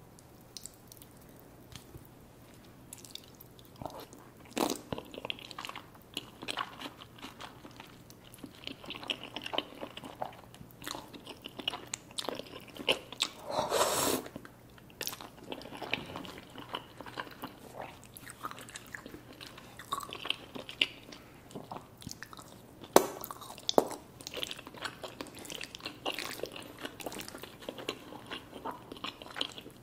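Close-miked eating: irregular biting and chewing with crunchy, crackling bites of food such as crisp chicken wings, and a longer, louder noisy mouthful about halfway through.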